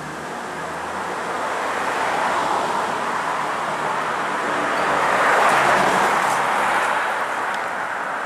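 Road traffic passing: the noise of a car's tyres and engine swells to its loudest about halfway through and then fades away.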